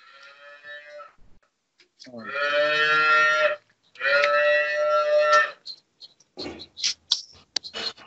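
Cow mooing twice, two long steady calls of about a second and a half each, followed by a few short knocks and clatter near the end.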